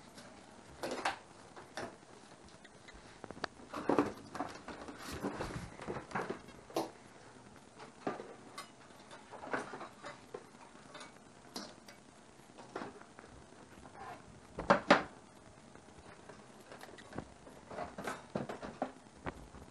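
Kitchen items being handled: scattered clicks, knocks and light rustles, with a sharp double knock about fifteen seconds in.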